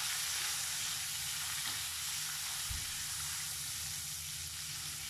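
King prawns sizzling steadily as they fry in hot oil in a wok, turned now and then with a wooden spatula.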